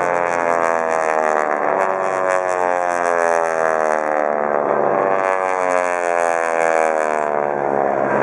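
Radial engines and propellers of T-6 Texan aircraft flying overhead, a loud drone whose pitch slides down as the planes pass; a second pass starts higher about five seconds in and falls again.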